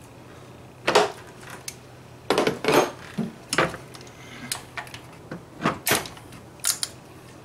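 Irregular metal clinks and knocks of a spark plug socket and two socket extensions being fitted together and worked down into a spark plug well, about eight sharp sounds with a quick cluster between two and three seconds in.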